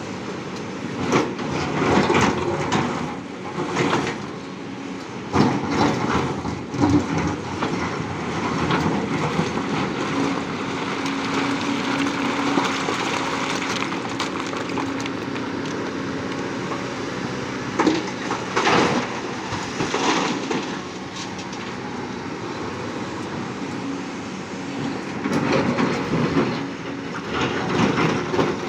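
Large mining excavator at work: its diesel engine runs steadily under irregular loud metallic clanking and scraping, heaviest about 1 to 7 seconds in, around 18 to 21 seconds and again near the end.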